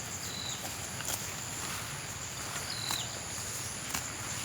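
Insects droning steadily at a high pitch, with a short high chirp about twice and a few light clicks.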